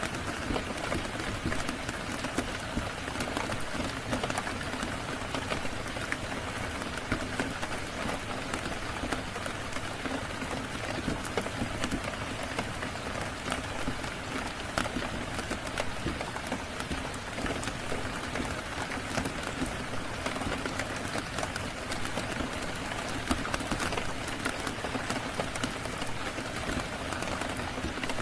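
Steady rain falling, mixed with frequent small sharp pops and crackles of a fire.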